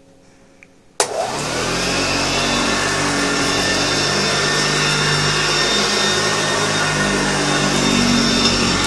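A 1967 Hoover Junior 1334E upright vacuum cleaner is switched on with a click about a second in. Its motor runs up to speed and then runs steadily with a whine. The motor has new carbon brushes and freshly greased bearings, and the owner calls it sounding much healthier now.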